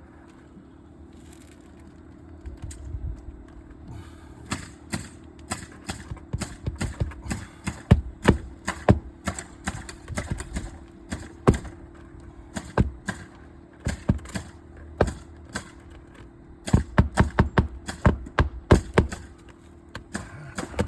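Irregular sharp taps and clicks from an old three-tab asphalt shingle being worked back into place under the course above, with a quick run of clicks near the end.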